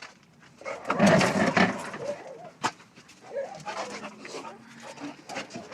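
Dog sounds: a loud, rough noisy burst about a second in, a sharp click past the middle, then a few faint short noises.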